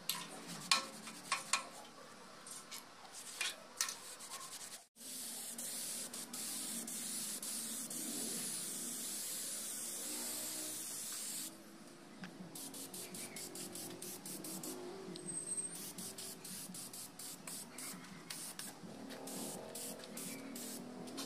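Aerosol spray paint can hissing in one steady spray for about six seconds, starting about five seconds in. Before and after it come short, scattered clicks and taps.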